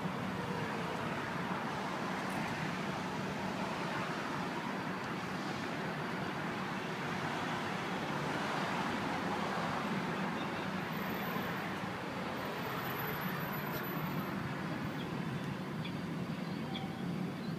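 Steady city street traffic noise, a continuous rush of passing vehicles that grows a little louder about halfway through.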